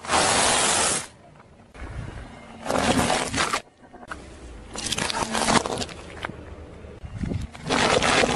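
A car tyre rolling over small objects on asphalt and crushing them, in a series of short bursts of crunching and cracking: brittle dry lasagna sheets crunching at the start, then a chocolate figure and paper cups breaking under the tyre.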